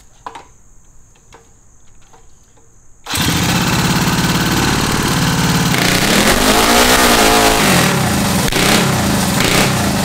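Methanol-burning Tillotson 236cc single-cylinder mini bike engine, spun by a handheld starter, fires suddenly about three seconds in and runs loudly, its revs rising and falling once near the middle.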